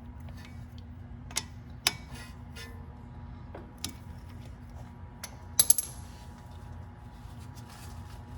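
Scattered sharp metallic clinks and taps of hand tools, such as a wrench on the brake bleeder screws, at the start of a gravity bleed. A quick, louder pair of clinks comes about two-thirds of the way through, over a low steady hum.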